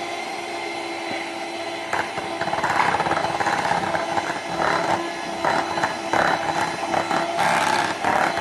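Electric hand mixer running steadily with a motor whine, its beaters working thick cake batter in a glass bowl. From about two seconds in, irregular rattling and scraping of the beaters against the bowl joins in.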